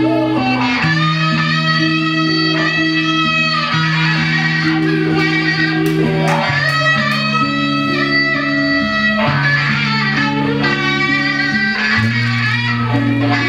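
Instrumental music with guitar over long held bass notes that change about every two seconds.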